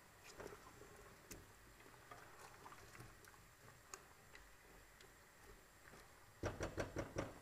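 A spoon stirring chopped onions, tomatoes, peppers and carrots in a large stainless-steel stock pot, quiet, with faint scattered clicks and scrapes. Near the end there is a quick run of about five louder knocks.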